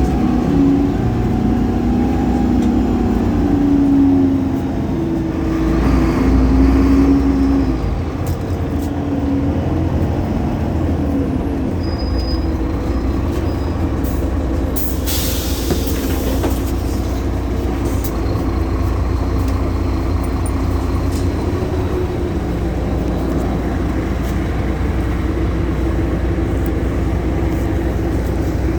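Solaris Urbino 18 bus with a DAF Paccar PR265 diesel and ZF Ecolife automatic gearbox running, its engine and transmission note rising and falling over the first several seconds, then settling into a steadier drone. A short hiss of compressed air about fifteen seconds in, typical of the air brakes.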